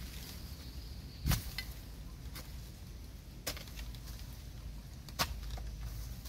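Hoe blade chopping into loose soil while digging a hole: four separate dull strikes at uneven intervals, the loudest about a second in.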